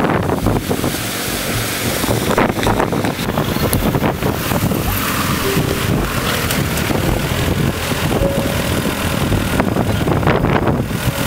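Off-road vehicles, a Lada Niva and a first-generation Mitsubishi Pajero, driving at low speed through a flooded dirt track, engines running and tyres splashing through the water, the Pajero passing close. Wind buffets the microphone.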